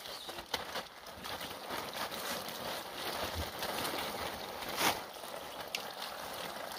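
Water from a garden hose splashing over a sheep's soaked fleece and onto plastic sheeting, a steady spray with scattered small clicks and one sharper click about five seconds in.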